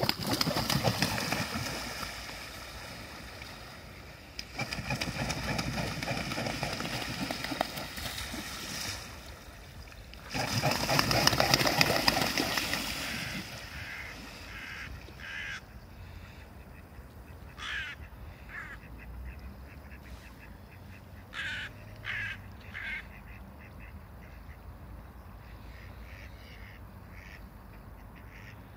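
Mute swans splashing and beating their wings on the water in three long loud spells, then, in the quieter second half, a string of short calls from the waterbirds on the river.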